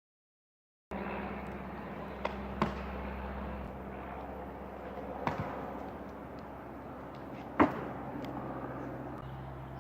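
Four sharp knocks spread over several seconds, the loudest about two-thirds of the way in, over a steady low hum.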